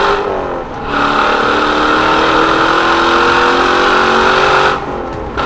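Chevrolet Corvette C7's V8 through a Borla exhaust, accelerating hard. The note climbs steadily through a gear, with a brief drop in pitch near the start and another near the end, like upshifts.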